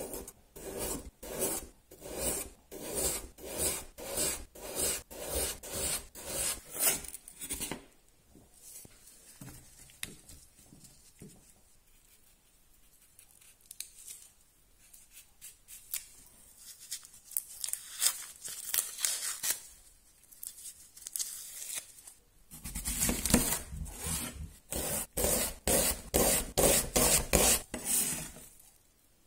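Large kitchen knife slicing peeled raw potatoes on a plastic cutting board, about two crisp strokes a second, each ending in a tap on the board. After about eight seconds comes quieter, scattered knife work and rustling while an onion is trimmed and peeled. From about 22 seconds the knife slices the onion into rings at about two strokes a second.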